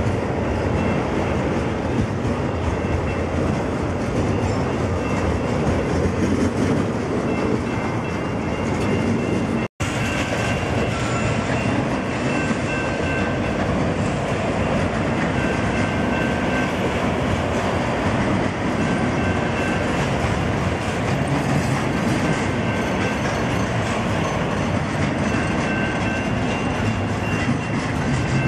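CN double-stack intermodal freight train's container well cars rolling past close by, a steady loud rumble of wheels on rail with clickety-clack, with faint high-pitched tones now and then. The sound cuts out for an instant about ten seconds in.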